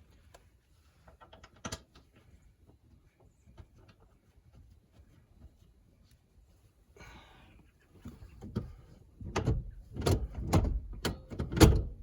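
Parts being handled while a car's seat belt latch is replaced: a few faint clicks, then from about two-thirds of the way in a quick run of loud knocks and clunks. The loudest clunk comes near the end.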